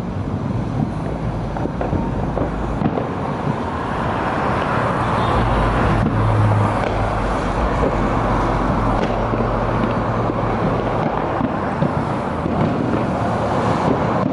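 Cars driving past on a street, a steady rush of tyre and engine noise, with a stronger low engine hum as a vehicle passes through the middle.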